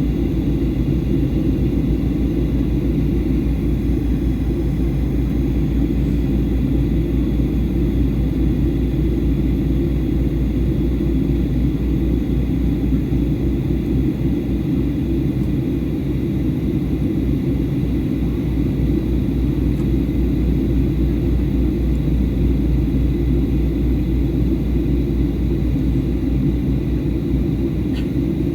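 Steady cabin noise of a Boeing 737-800 on descent: the low, even roar of engines and airflow, with a few faint steady high tones above it.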